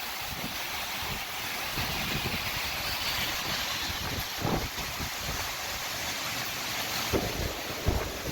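Storm wind blowing hard across the microphone: a steady hiss with low buffeting rumble, and a few short stronger gusts near the middle and end.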